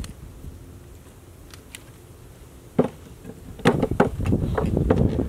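Metallic clicks and knocks of a pistol being handled at the bench as a failure to eject is cleared: a single sharp click about three seconds in, then a quick run of clicks and knocks from about four seconds on. Low wind rumble on the microphone underneath.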